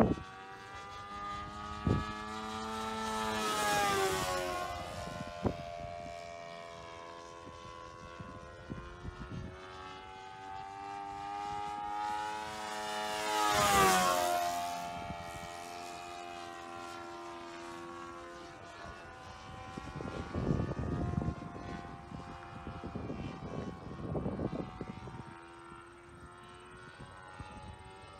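Sportster 60 RC model airplane's engine and propeller droning in flight, swelling and dropping in pitch as the plane sweeps past twice, a few seconds in and again about halfway through.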